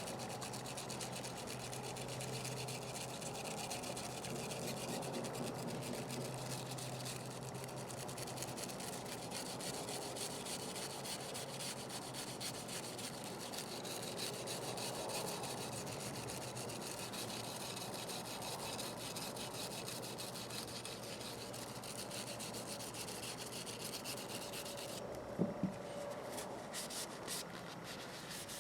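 Steady hand rubbing and scrubbing on the steel of an old pair of crimpers as they are cleaned, with two light knocks near the end.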